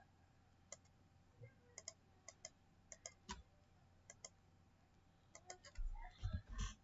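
Faint clicks from a computer mouse, a dozen or so sharp ones, several in quick pairs. Near the end come a few louder low thumps and a rustle.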